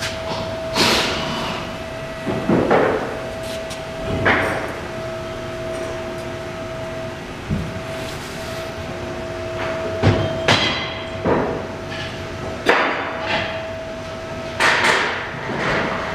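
Workshop background: irregular knocks and bangs, about eight of them, over a steady high hum.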